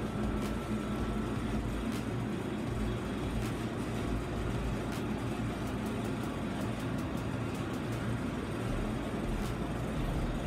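Steady low rumble and hiss of a car running, heard from inside the cabin, with a few faint clicks.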